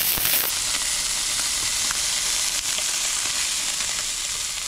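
Beef steaks sizzling on a hot grill pan over a portable butane gas stove: a steady frying hiss with a few small crackles. About half a second in, the top of the hiss dulls as the sound switches from one action camera's microphone to the other's.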